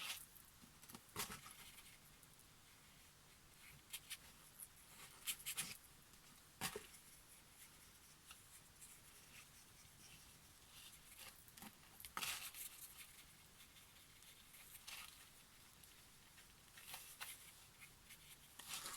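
Quiet room tone with occasional soft taps and light scratches from a watercolour brush working on paper.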